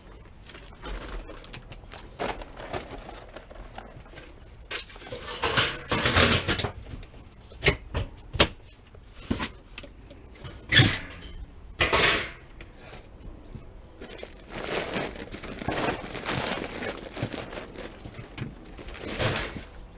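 Animal feed and its containers being handled: irregular bursts of rustling and scraping, with a few sharp knocks and clunks in the middle.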